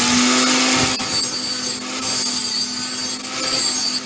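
Homemade electric grinder running at speed: its motor holds a steady high whine while the abrasive disc gives a harsh grinding hiss.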